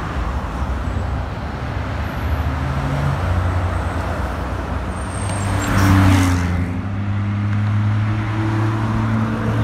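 Porsche 911 Turbo's twin-turbo flat-six driving past along the avenue, its engine note rising and loudest about six seconds in as the car passes closest, then holding a steady drone as it pulls away, with light road traffic.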